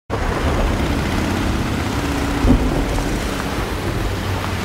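Steady city traffic rumble from passing cars, with a short louder bump about two and a half seconds in.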